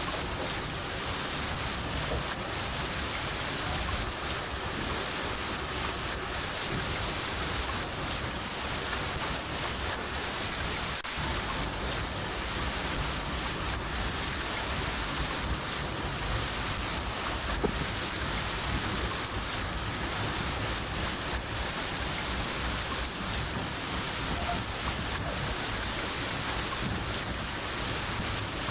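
A cricket chirping steadily at about three chirps a second over a steady hiss of rain.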